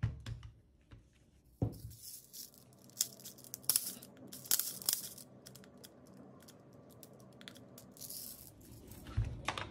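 Clear plastic airsoft BB speed loader being handled and worked, with irregular plastic clicks and scratchy rattling of BBs. A sharper knock comes about a second and a half in.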